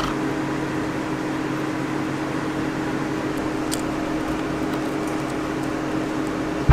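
A steady mechanical hum with a low, even tone, and one faint click about halfway through.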